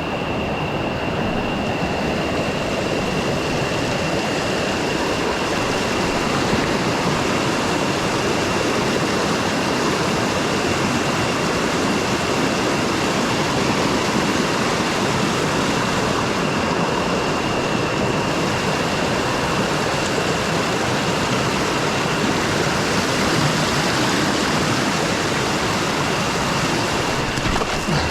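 Jungle river rushing over rocks and small cascades in a steady, loud roar of water. A thin, steady high whine runs under it.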